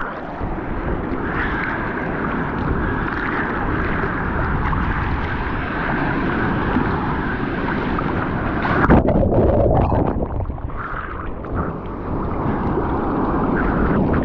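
Wind buffeting the microphone over the steady rush of ocean surf, with a brief louder surge of noise about nine seconds in.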